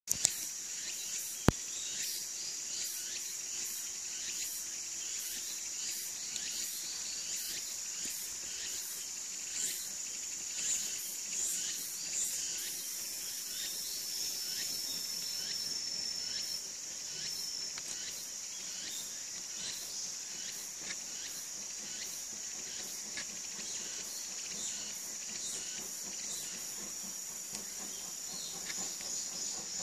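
Insects trilling in a steady, high-pitched chorus, pulsing during the first dozen seconds. One sharp click comes about a second and a half in.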